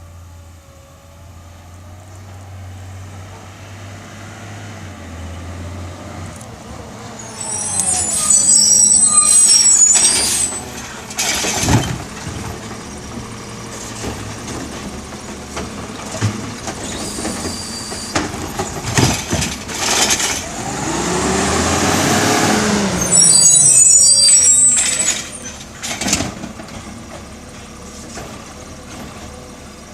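Natural-gas garbage truck working a pickup: its brakes squeal high twice, its air brakes hiss, and the engine and lift rise and fall in pitch, with several sharp knocks as the cart is handled.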